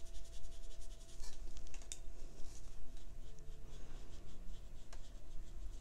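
A paintbrush being stroked back and forth over Bristol paper, a string of light, quick scratchy brushing strokes while watercolor ink is worked in. One sharper click about two seconds in.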